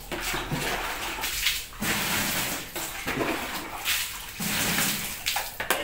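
Water splashing and sloshing in irregular bursts, about one a second, as water is scooped with a dipper and a washing machine's dirty tub is scrubbed and rinsed.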